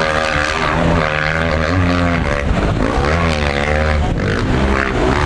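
Enduro dirt-bike engine revving hard in repeated throttle bursts of about a second each, its pitch rising and falling, as it labours up a steep sandy climb.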